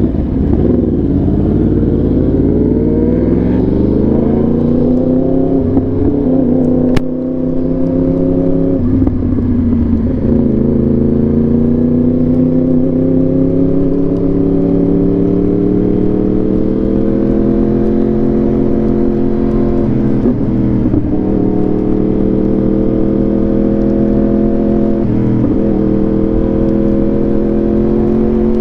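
Yamaha R1 inline-four motorcycle engine through an SC Project exhaust, pulling under acceleration with its pitch climbing over the first few seconds, then holding and rising slowly. There is a brief dip in loudness about seven seconds in.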